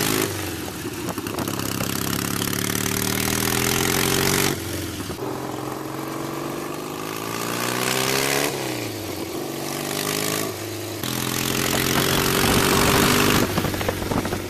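1956 Triumph 650 parallel-twin motorcycle engine under hard acceleration through the gears. Its note climbs, drops sharply at each shift, and climbs again, with the drops at about four and a half, eight and a half and eleven seconds in.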